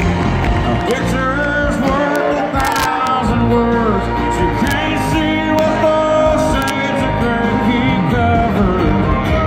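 Live country band playing amplified through the stage sound system, guitars and drums under a melody line.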